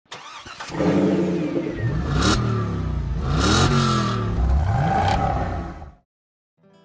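Car engine revving, its pitch rising and falling back several times before cutting off abruptly about six seconds in.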